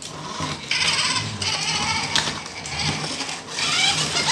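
Small electric radio-controlled toy cars whirring as they drive, their motors and gears coming and going in several short bursts of throttle.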